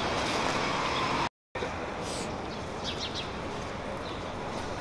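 Outdoor city ambience: a steady hum of distant traffic and people, with a few short high bird chirps about three seconds in. The sound cuts out completely for a moment just over a second in.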